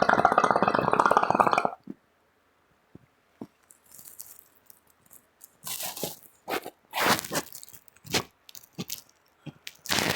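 Music that cuts off abruptly about two seconds in. After a short quiet, scattered short crackly rustling and scraping sounds follow, as of things being handled close to the microphone.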